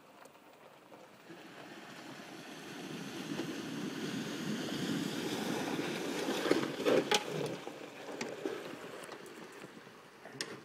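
Water splashing and churning around the wheels of an electric golf cart wading through a shallow creek, growing louder as it comes closer, with a few sharp knocks about seven seconds in as it climbs out onto the bank, then fading.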